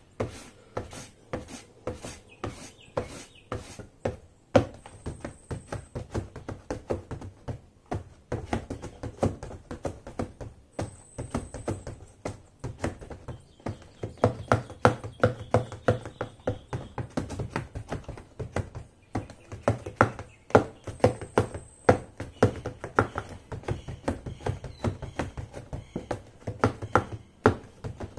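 Silver stiletto pumps tapping quickly and unevenly on the bottom of a cardboard box: a dense run of hollow clicks and knocks from heels and soles on cardboard. The tapping gets busier and louder about halfway through.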